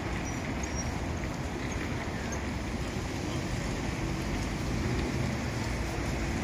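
Steady street ambience: an even hiss of road traffic, with no single vehicle standing out.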